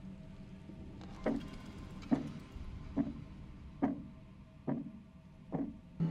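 Dark ambient electronic soundscape: a low steady drone with short, dropping knocks that repeat evenly a little faster than once a second, starting about a second in.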